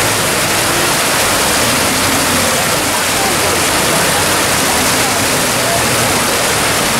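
Muddy floodwater rushing in a steady, loud torrent across a road, with faint voices of people in the background.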